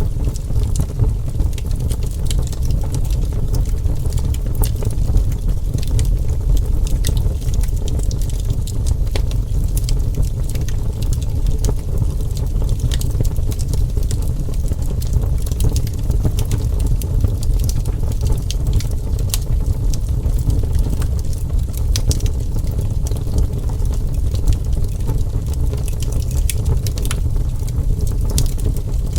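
Wood fire burning with a steady low rumble and many small, irregular crackles and pops.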